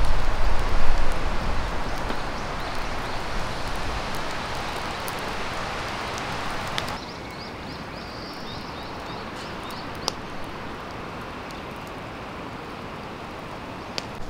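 Wind rushing through pine trees with a low rumble on the microphone, fading over the first few seconds. After a sudden change, birds chirp and a wood fire crackles with a few sharp pops.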